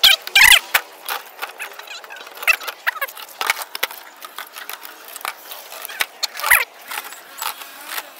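Hollow plastic tomato crates knocking and clattering as they are carried and set down on top of one another, in irregular knocks and rattles. The loudest clatter comes right at the start and again about six and a half seconds in.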